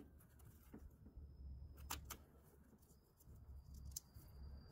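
Near silence: a low hum with a few faint, short clicks.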